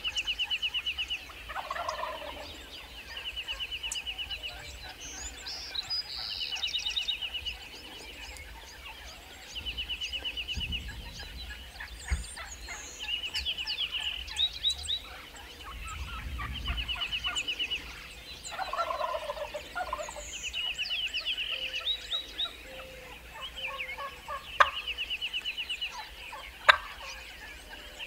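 Rio Grande wild turkey gobblers gobbling again and again, each gobble a rapid rattle lasting about a second, among other bird calls. A few sharp clicks come near the end.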